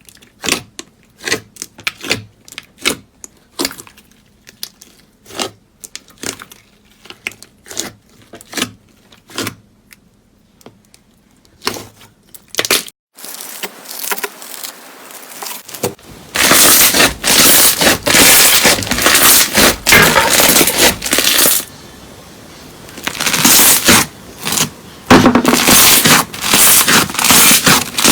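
Slime being pressed and squeezed by hand: sharp, separate clicks and pops, about two a second, through the first half, then after a short hush a dense, loud crunching and crackling that runs on with one brief pause.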